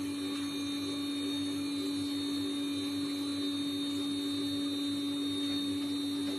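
Super Roaster 3.5 kg drum coffee roaster running empty at preheat, its motor and fan giving a steady hum before the beans are charged.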